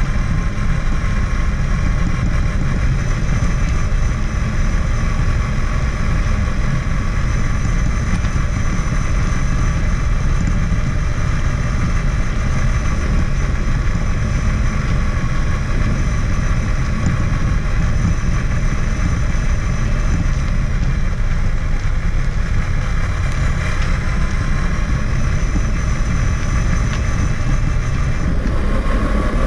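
Traxxas Summit 1/10-scale RC truck driving, heard from a camera mounted on top of it: a steady whine from its electric motor and gears over a heavy low rumble, the whine shifting in pitch near the end.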